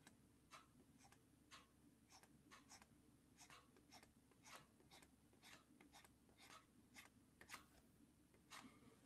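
Faint, short scratchy strokes of a stylus on a graphics tablet, about two a second, over a faint low hum.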